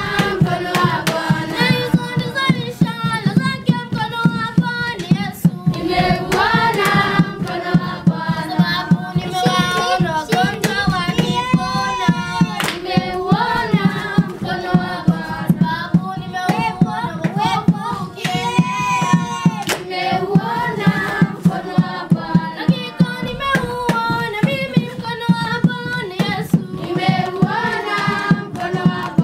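A group of children singing a worship song together, with hand clapping in a steady rhythm.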